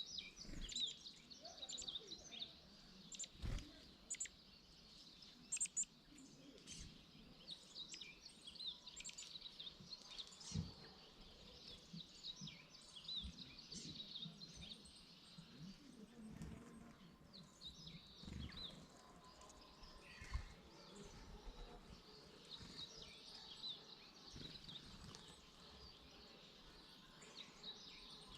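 Small birds chirping and calling, a faint, continuous chatter of many short high notes, with a few brief low thumps.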